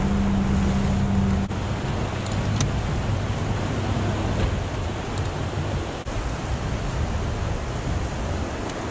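Rushing, churning river water and wind on the microphone from a boat in turbulent tailwater. A steady motor hum sounds over it for the first second and a half, then stops.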